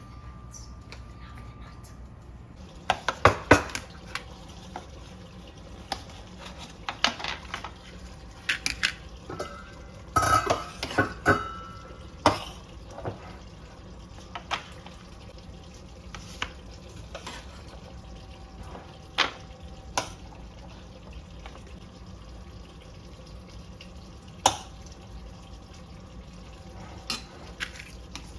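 Dishes and metal utensils being handled, with scattered knocks and clinks at irregular intervals and a busier run of ringing clinks about ten to twelve seconds in.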